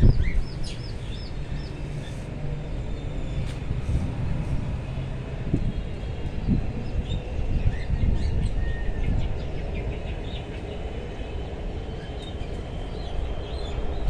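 Small birds chirping with short calls, a quick run of chirps near the start and scattered ones after, over a louder, uneven low rumble.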